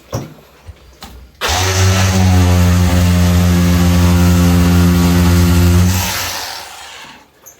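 An electric power tool starts abruptly about a second and a half in, runs at a steady pitch for about four and a half seconds, then winds down and stops.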